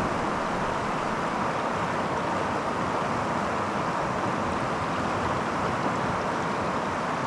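Creek water flowing, an even, steady rush of noise with no breaks.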